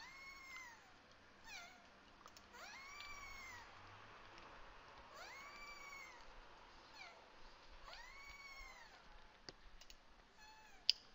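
A cat meowing repeatedly, each meow a drawn-out call that rises then falls, coming every two to three seconds. Near the end a single sharp mouse click stands out as the loudest sound.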